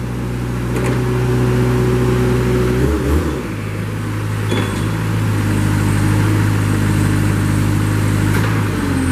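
The Kubota engine of a 2014 Princeton PB50 piggyback forklift running steadily. About three seconds in, its pitch dips briefly and recovers, then holds steady again.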